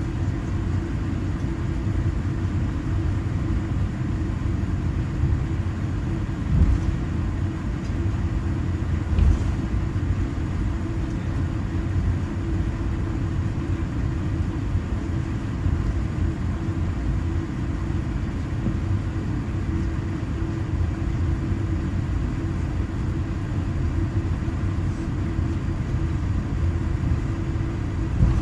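Steady low rumble inside the cabin of a Boeing 787-9, with a few brief soft bumps.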